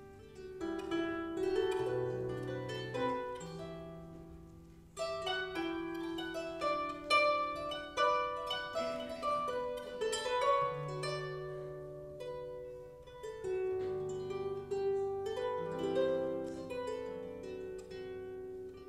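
Solo harp playing a traditional tune: plucked melody notes ringing over deeper bass notes. A phrase dies away about four seconds in, and the next starts firmly a second later.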